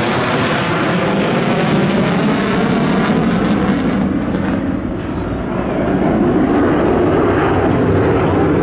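Jet fighter engine noise overhead, including a twin-engine F-15: a loud, steady roar whose high hiss fades about four seconds in and then swells back up about six seconds in.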